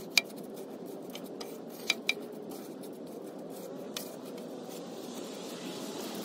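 An old paintbrush sweeping ash around the cast-aluminium firebox of a PK360 charcoal grill: a steady scratchy brushing, broken by four sharp clicks of the brush knocking against the grill.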